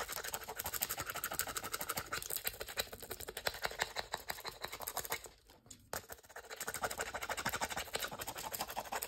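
Wooden popsicle stick rubbing craft transfer foil down onto a tacky adhesive-coated plastic ornament: quick back-and-forth scratchy strokes, with a short pause a little past halfway.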